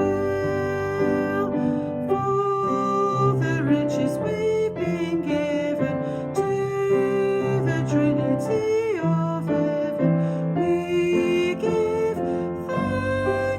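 Recorded worship song: piano accompaniment under a sung melody.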